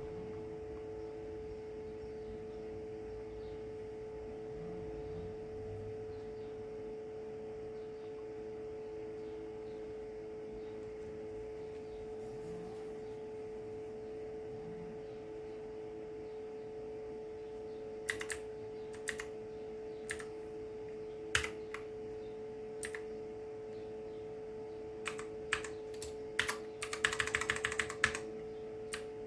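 A steady hum runs throughout. From about two-thirds of the way in come the clicks of blue-switch mechanical keyboard keys: single key presses about a second apart, then a quick run of typing near the end.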